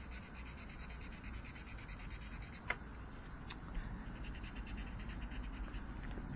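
Ink marker scratching on paper in fast, even back-and-forth strokes, colouring in a drawing, with a light tick about two and a half seconds in.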